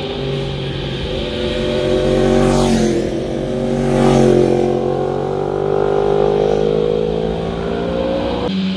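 Two motorcycles passing close by one after the other. Each engine's note climbs as it approaches and drops sharply as it goes past, about three and four seconds in, then fades away.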